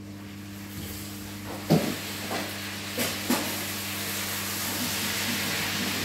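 A steady low hum with a hissing noise that swells from about a second and a half in and keeps growing, and a few short knocks along the way.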